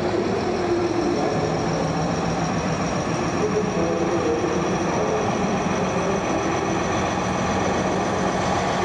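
Steady engine-like drone with a thin high whine over the general din of a busy indoor exhibition hall.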